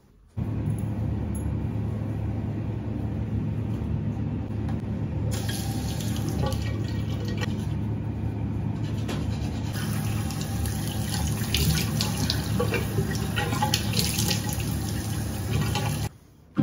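Tap water running into a ceramic bathroom basin, with splashing from about five seconds in as hands scoop water to wash the face. The sound starts suddenly just after the start and cuts off suddenly near the end.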